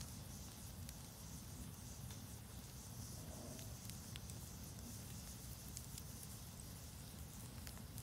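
Wood campfire burning, with faint, scattered sharp crackles and pops from the logs over a low steady background.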